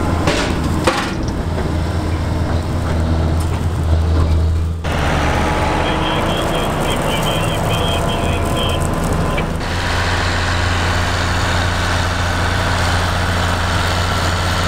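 John Deere 9520 four-wheel-drive tractor's diesel engine running steadily as it pulls a chaser bin, the sound jumping abruptly about a third and two thirds of the way through as shots change. Near the middle, a string of short high-pitched beeps sounds over the engine.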